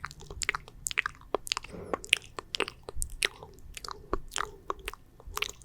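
Wet, sticky mouth sounds close to the microphone: irregular saliva clicks and smacks, several a second.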